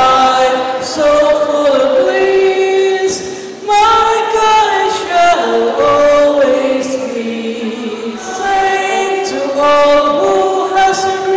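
A standing crowd singing a ceremonial song together in chorus, men's and women's voices on long held notes.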